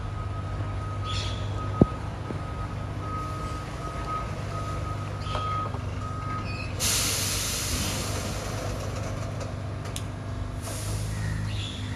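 BYD electric rear-loader garbage truck reversing, its back-up alarm beeping steadily over a low hum, with one sharp knock about two seconds in. About seven seconds in the beeping stops and a loud air-brake hiss lets out and fades over a few seconds, with a second, shorter hiss near the end.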